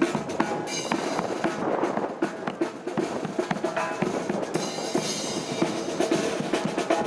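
Marching brass band playing, with drums (bass and snare) striking throughout and short phrases of held brass notes about a second in and again past the middle.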